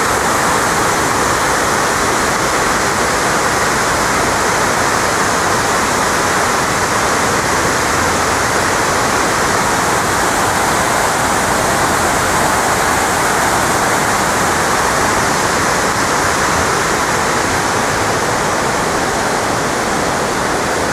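Steady rush of the memorial pool's waterfall: a sheet of water pouring down the pool's walls into the basin.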